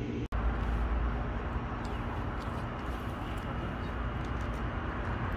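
Steady outdoor background of low rumble and hiss, with faint scattered crackles from the glowing coals under a cast iron Dutch oven. The sound cuts out for an instant just after the start.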